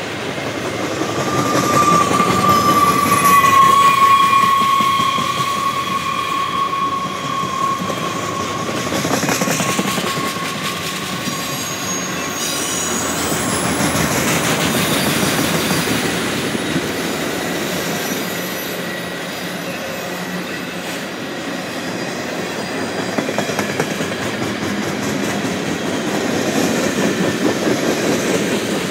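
Freight cars of a mixed freight train rolling past close by, wheels clicking over the rail joints. A high steady wheel squeal, falling slightly in pitch, runs from about a second in until about ten seconds in as the cars take the curve.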